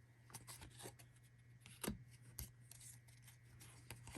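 Baseball trading cards being handled and slid against each other while a stack is flipped through: faint rustling with scattered soft clicks, the loudest about two seconds in, over a steady low hum.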